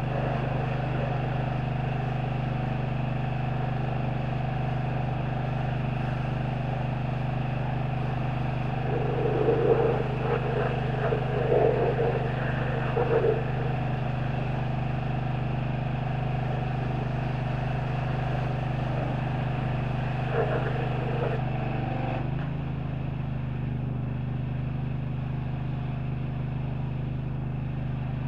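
An engine running steadily, its pitch dropping slightly about two-thirds of the way in. A few short, louder bursts come in the middle and once more a little later.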